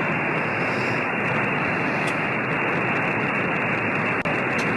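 Steady hiss of HF band noise from a FlexRadio 8600 transceiver receiving on SSB, with no voice coming through and everything above the SSB filter's passband cut off.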